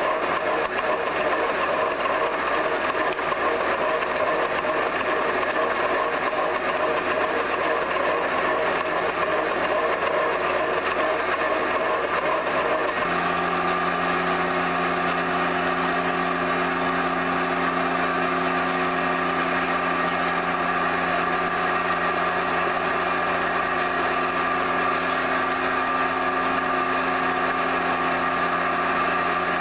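Steady running noise of pottery-workshop machinery. About halfway through it gives way to a steadier machine hum with several held tones.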